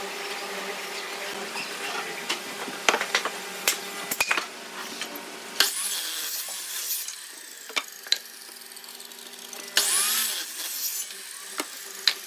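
Sliding compound miter saw cutting through wooden boards, in two short cuts about halfway through and again near the end, after a run of knocks from wood being handled.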